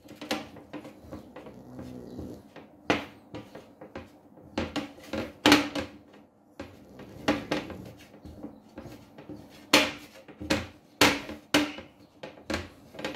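Pizza dough being mixed by hand in a glass mixing bowl: irregular knocks and clinks of fingers and the bowl against glass, with faint rustling of the flour and dough between them.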